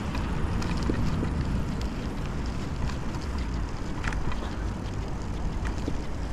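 Steady wind rush on a GoPro action camera's microphone during a bicycle ride, over a low rumble of tyres and road traffic, with a few faint clicks and rattles.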